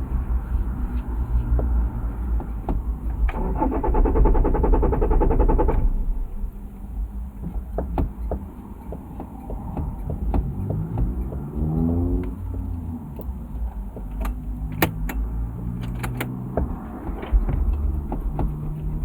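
Car engine being cranked by the starter as it struggles to start, with a fast, loud cranking stretch early on. A little after ten seconds it revs up and back down, then runs unevenly, with a few sharp clicks.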